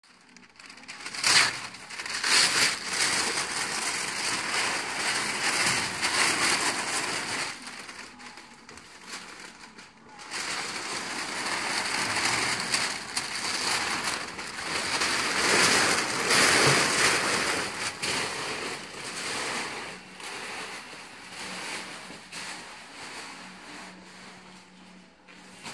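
Masking paper and tape being ripped and crumpled off a freshly painted vehicle body by hand: loud, irregular crackling and rustling of paper. It comes in two long spells with a lull between them and tails off near the end.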